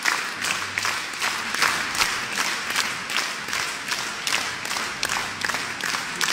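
Audience applauding, with the clapping fallen into unison: a steady rhythmic beat of about three claps a second over a wash of general applause.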